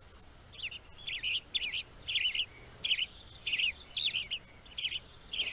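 A songbird singing: short, quick chirpy phrases repeated about twice a second.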